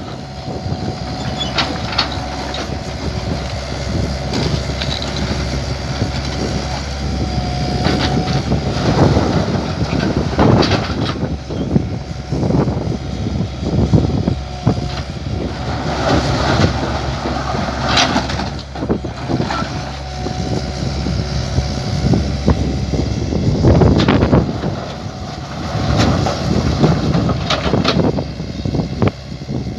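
Mini excavator's diesel engine running under load, with a hydraulic whine that rises and dips as the controls are worked. Scattered knocks and clatter come from the bucket working the truck's load.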